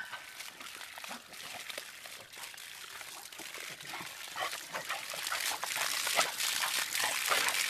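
Garden hose spraying water onto grass and wet dogs, splashing as the dachshunds bite and snap at the stream. The spray grows louder about halfway through.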